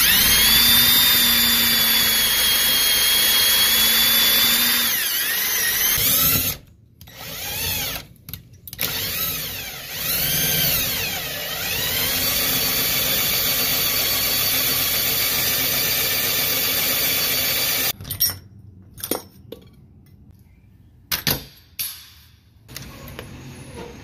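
Cordless drill whining as a twist bit cuts through a deadbolt's metal housing to reach its mounting screws. It runs in bursts: one run of about five seconds that speeds up at the start, several short bursts, then a steady run of about six seconds. A few sharp knocks follow near the end.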